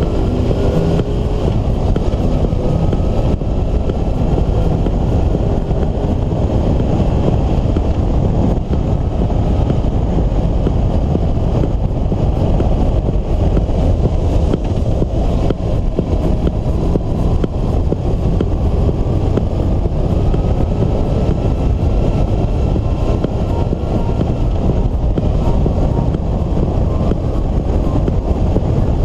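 Loud, steady wind and road rush on a vehicle-mounted camera travelling through heavy rain on a wet road. A faint engine note rises and falls underneath.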